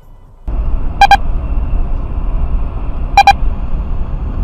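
Steady low rumble of a car driving, heard from inside the cabin, starting abruptly about half a second in. Over it a short electronic double beep sounds twice, about two seconds apart.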